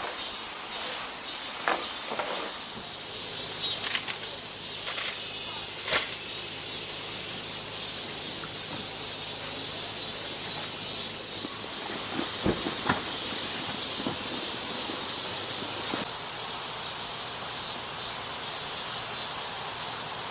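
Insects chirping steadily in a high-pitched haze, with a louder, very high buzz from about four to seven seconds in, and a few faint clicks.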